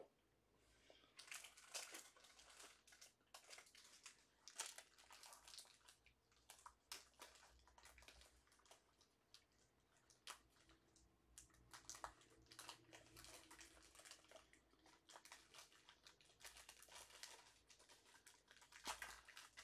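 Near silence with faint, scattered crinkling and small clicks: a pack of plastic card sleeves and packaging being rummaged through and handled.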